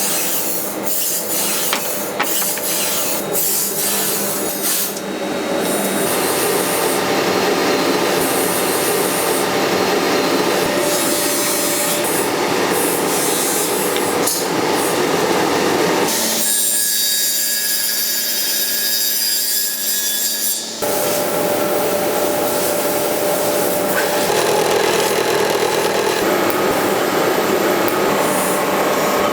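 Steel for a hand-made chef knife being worked with abrasive tools: a steady, loud rasping with a few sharp knocks in the first five seconds. Just past the middle, for about four seconds, it changes to a steadier whine made of several tones.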